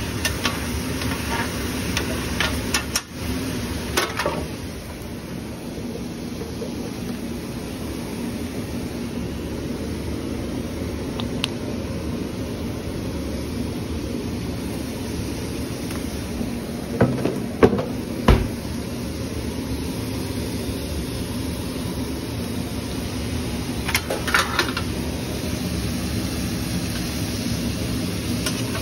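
Steady whirring hum of a kitchen fan over a flat-top griddle, with a few sharp metal clicks and scrapes of spatulas on the griddle: a couple a few seconds in, a cluster around the middle and more later on.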